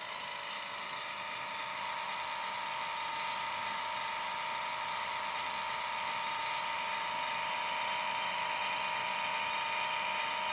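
Sound-fitted 00 gauge Hymek model locomotive's DCC decoder playing a diesel engine sound through a small speaker, a steady hum with a high whine that swells slightly, its volume just turned down.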